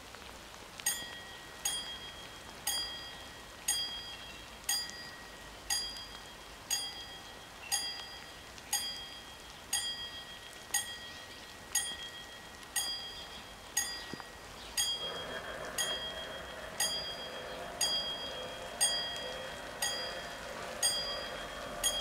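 Level-crossing warning bells of a WSSB crossing striking about once a second as the crossing activates for an approaching train, over a steady patter of rain. About fifteen seconds in, a steady hum with several held tones joins the bells as the barrier arms begin to lower.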